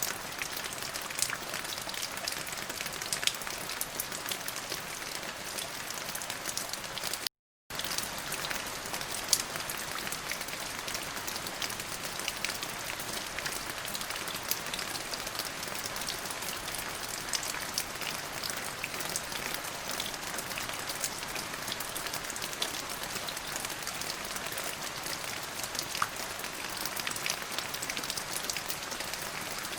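Steady rainfall with a dense patter of individual drops striking a surface. The sound cuts out completely for a split second about seven seconds in, then resumes unchanged.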